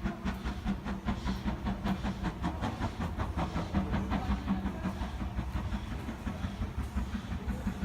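Stanier 8F two-cylinder 2-8-0 steam locomotive on the move: a steady low rumble with a rapid run of rhythmic beats and clicks.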